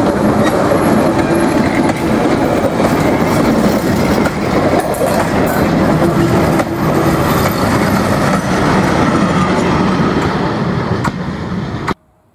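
Railway wagons and a passenger coach of a steam train rolling past close by, wheels rumbling and clacking over the rail joints; the sound cuts off suddenly just before the end.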